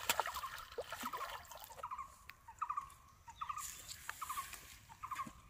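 An animal calling in quick stuttering runs of four or five short notes, repeated about once a second. The first two seconds also hold a hissing noise with a few clicks.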